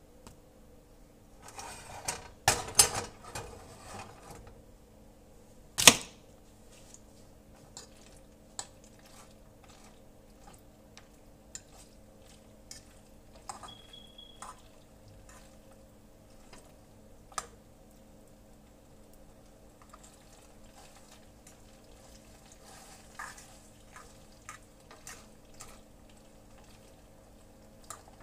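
Kitchen utensils and dishes being handled: a clattering stretch about two seconds in, a sharp knock about six seconds in, then scattered light clicks and taps over a steady low hum.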